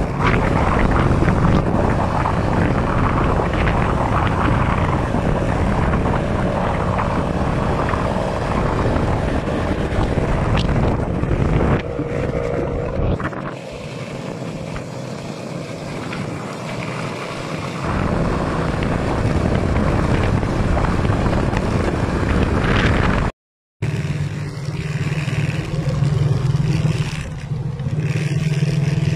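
Motorcycle engine running on the move, with rushing road and wind noise. A steady low engine hum stands out more strongly after the sound cuts out completely for half a second about three-quarters of the way through.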